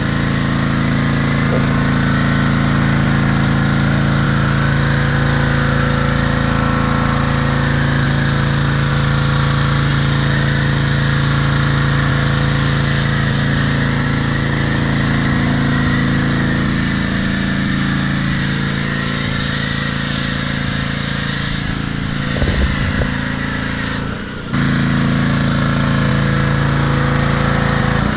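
Gas pressure washer engine (Troy-Bilt, Honda-powered) running steadily under load while the foam cannon sprays, its drone mixed with a steady hiss of spray. The sound drops briefly once, about four seconds before the end.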